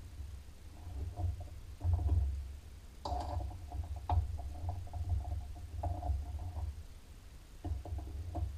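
A lathe's quick-change tool post and tool holder being handled and adjusted: irregular metal knocks and scraping with a low rumble of contact noise, and two sharp metal clicks about three and four seconds in.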